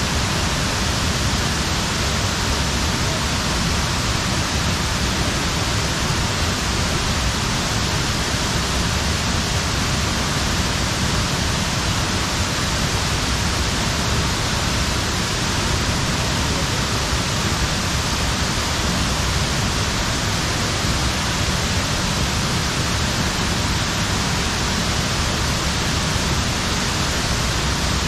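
Sgwd-yr-Eira waterfall, about 25 feet high, pouring into its plunge pool: a steady, unbroken rush of falling water.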